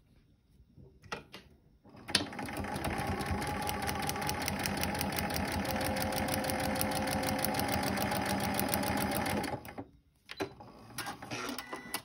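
Computerized sewing machine stitching a seam through fabric and foundation paper at a steady, even speed, starting with a click about two seconds in and stopping a couple of seconds before the end. A few light clicks and handling sounds come before and after it.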